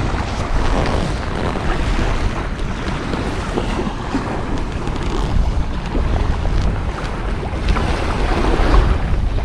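Wind buffeting the microphone over small waves lapping and breaking at the water's edge.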